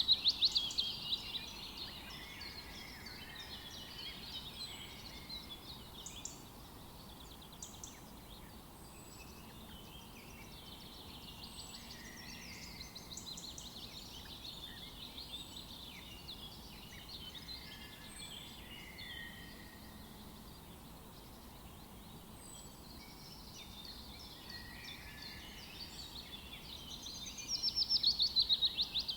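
House sparrows chirping and cheeping continuously, with a loud, fast run of repeated chattering notes at the start and again near the end, over faint background noise.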